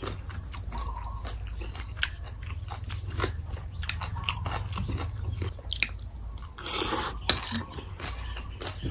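Close-up chewing of a mouthful of Thai papaya salad: wet, crisp crunches and mouth clicks, with a louder crunchy burst about seven seconds in, over a steady low hum.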